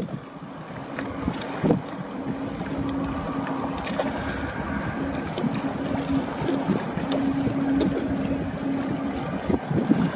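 Wind buffeting the microphone over a steady low hum that fades in and out, with a couple of short knocks.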